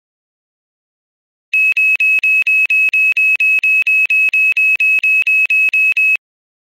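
After about a second and a half of silence, a rapid train of identical high-pitched electronic beeps, about four to five a second, runs for nearly five seconds and stops abruptly.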